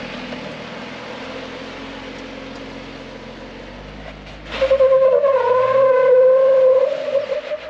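Jeep Wrangler on a slickrock ledge with its engine running steadily. About four and a half seconds in, a loud wavering squeal rises over it and lasts a little over two seconds.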